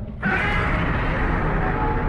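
A made-up monster roar sound effect for Shin Godzilla starts about a quarter second in after a brief drop, a cry with a few held pitches over a heavy low rumble.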